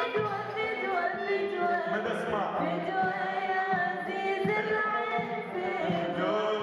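A woman singing solo into a microphone with music behind her. She holds long notes that bend and glide in pitch.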